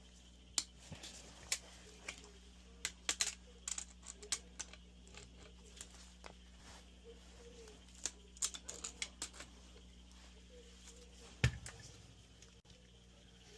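Scattered light clicks and taps of tools and metal parts being handled while a dryer's blower fan assembly is taken apart, with one louder knock about eleven and a half seconds in, over a steady low hum.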